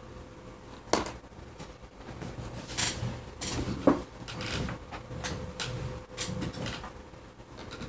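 Small objects being handled at a desk: a series of clicks, knocks and rustles, with a sharp click about a second in and the loudest knock about four seconds in, over a faint steady hum.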